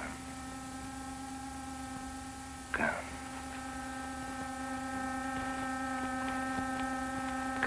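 A steady droning tone with a stack of overtones, holding one pitch and slowly growing a little louder, with a brief breathy hiss about three seconds in.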